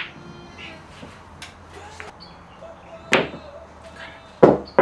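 Pool balls clacking together on a pool table: one sharp clack about three seconds in and another near the end.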